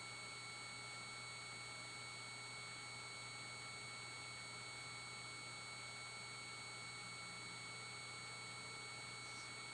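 Steady faint hiss with a few constant high-pitched electronic tones and a low hum, unchanging throughout: the recording's background noise with no other sound.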